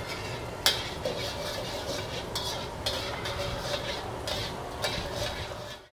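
Metal spatula stirring and scraping around a wok as sugar caramelizes in hot oil, with a light sizzle under the scraping and one sharp clack of the spatula on the wok about half a second in. The sound cuts off abruptly at the end.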